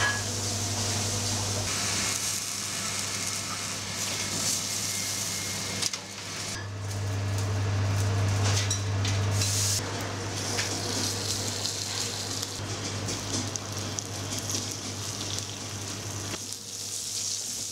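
Restaurant kitchen ambience: food sizzling on a hot flat-top griddle, over a steady low hum, with scattered clicks and clinks.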